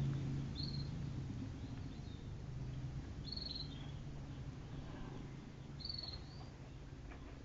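Small bird giving three brief, high chirps about three seconds apart, each a short level note that drops at the end, over a low steady hum.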